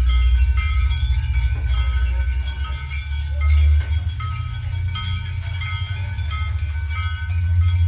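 Experimental ensemble music: a deep, steady low drone under several sustained high ringing tones, with many short, scattered high notes.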